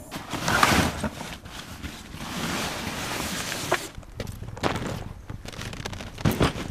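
Fabric fishing-tackle bags rustling as they are pulled out of a car boot. This is followed by separate knocks and shuffling footsteps on asphalt as the bags are set down.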